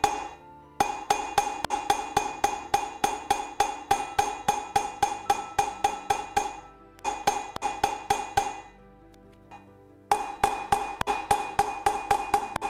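Hammer blows on a steel bearing-driver shaft, driving a new rear wheel bearing into a motorcycle wheel hub. The strikes come at about three or four a second, each one ringing, in three runs with short pauses between them.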